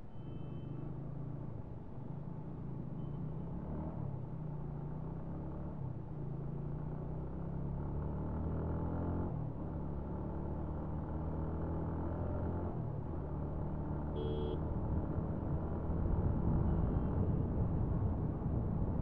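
TVS Apache motorcycle's single-cylinder engine running under way and pulling harder as the bike speeds up, its pitch climbing and then dropping at a gear change about halfway through. A short horn beep comes about three-quarters of the way in, and wind and road noise grow louder near the end.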